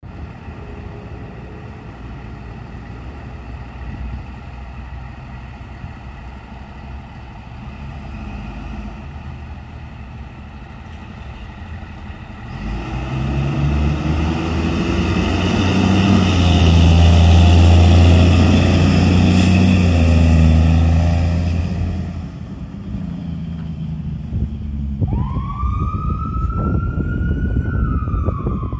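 Fire engine's diesel engine running low, then growing much louder about halfway through as the truck pulls out of the station and passes close by, before fading. Near the end its siren starts up, a wail that rises quickly and then falls.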